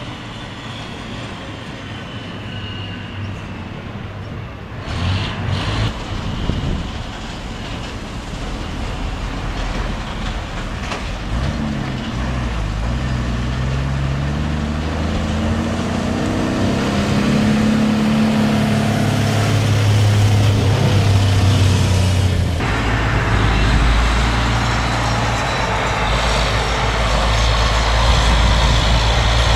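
The 1,000 hp NICOLAS Tractomas heavy-haul tractor's diesel engine running as the truck drives over quarry gravel. Around the middle its note climbs steadily in pitch as it pulls harder, and about three-quarters of the way through the sound shifts abruptly to a deeper, louder engine sound.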